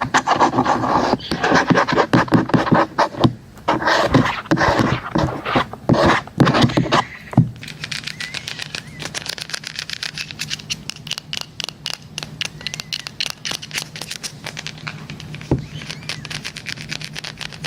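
ASMR tapping and scratching on a hard device. For about seven seconds there are dense, irregular taps and scratchy strokes, then rapid light clicking over a steady low hum.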